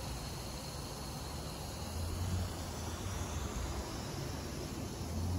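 Quiet outdoor background: a steady low rumble with a faint hiss and no distinct event, swelling slightly about two seconds in and again near the end.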